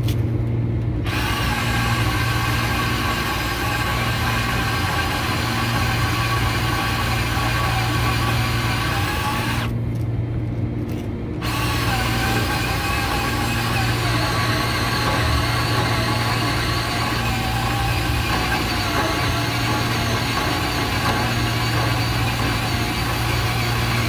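Milwaukee M12 cordless band saw cutting through the metal blower shaft of a package unit, cutting easily. The saw motor hums steadily throughout. The blade's cutting noise comes in about a second in, drops out briefly near the middle, then resumes.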